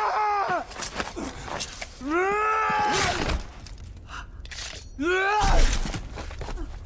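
Sword fight between two men: three strained cries of effort, the last the loudest and landing with a heavy thud, with sharp clashes and knocks of steel blades between them.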